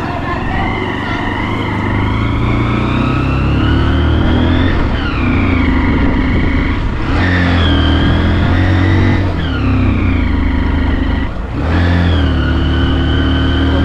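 A motor vehicle's engine labouring up a steep hill road. The revs climb and then fall back sharply about four times.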